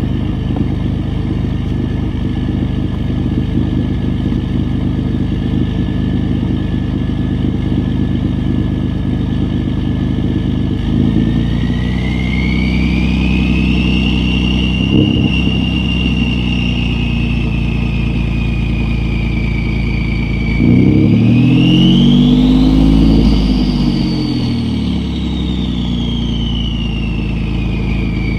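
Ford 3.5L EcoBoost twin-turbo V6 running with a loud, steady turbo whistle over the engine note. The whistle rises in pitch with a light rev about ten seconds in, eases back, then climbs steeply and falls away again with a harder rev about twenty-one seconds in.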